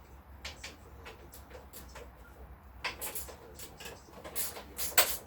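Clicks, taps and short scraping sounds from hands working with tools and parts. They are sparse at first, then come quicker and louder from about three seconds in.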